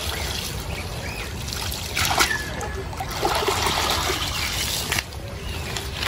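Water trickling and splashing off a wet cast net as it is hauled out of shallow river water, loudest about two seconds in.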